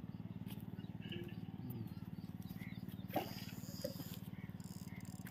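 Low, steady motor drone with a fast, even pulse, with one sharp click about three seconds in.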